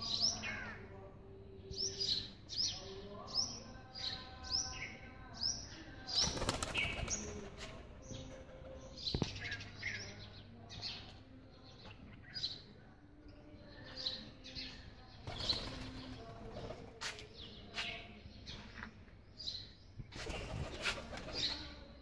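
Birds chirping in short, high, falling notes, a few each second, over pigeons flapping their wings in two louder spells, about six seconds in and near the end.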